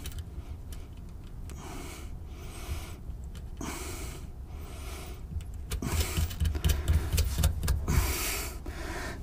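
Hands threading a nut onto a cable terminal stud of an electric winch: rustling and light metal clicks, busier in the last few seconds, over a low steady rumble.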